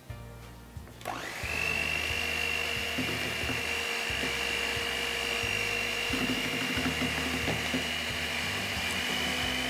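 Electric hand mixer switching on about a second in, its motor quickly spinning up to a steady high whine as the beaters cream butter, brown sugar and eggs.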